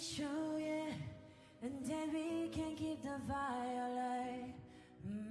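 Pop song in a quiet breakdown: a singing voice holds long notes with slides in pitch, in phrases of about a second, over sparse backing with no heavy beat.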